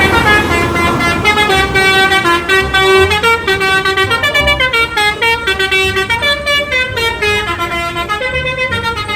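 Telolet bus horn, a multi-trumpet musical air horn of the Basuri type, playing a quick tune: a run of pitched notes stepping up and down, about two to three a second, over a low rumble.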